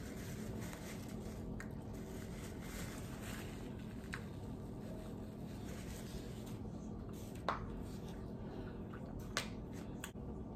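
Close-up eating sounds of a chicken wing being chewed, with wet mouth smacks and a few short sharp clicks, the loudest about two-thirds of the way through, over a steady low room hum.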